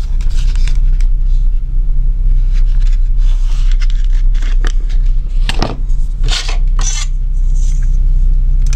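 Leather knife sheath being handled and a fixed-blade knife drawn out of it: scrapes and leather rustles, busiest five to seven seconds in, over a steady low hum.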